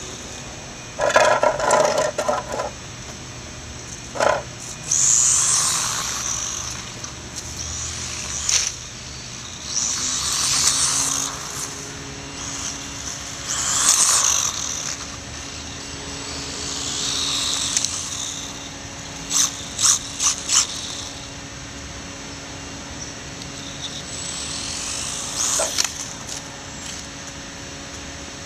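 Brushless electric motor of a Losi Micro Desert Truck whining as the little RC truck speeds past and over the jump ramp, the whine swelling and fading several times. A few sharp clacks and knocks come from the truck meeting the pavement.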